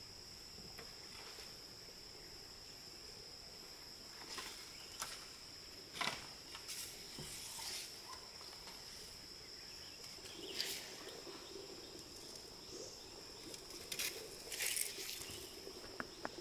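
Insects making a steady high-pitched drone, with scattered rustles and a few sharp knocks from about four seconds in, the loudest near the middle and near the end.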